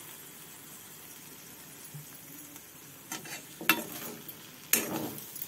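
Brinjal (eggplant) pieces sizzling gently in oil in a kadai over a low flame. In the second half a metal spatula scrapes and stirs them against the pan three times.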